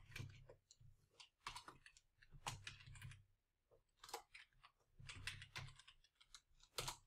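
Faint typing on a computer keyboard: irregular key clicks coming in small clusters.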